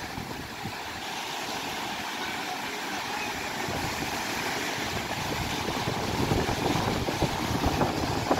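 Ocean surf breaking and washing on a beach, with wind buffeting the microphone; the surf grows louder in the second half.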